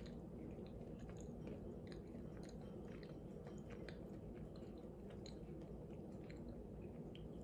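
A person chewing a bite of a soft homemade date bar with the mouth closed: faint, irregular sticky clicks of the mouth over a low steady room hum.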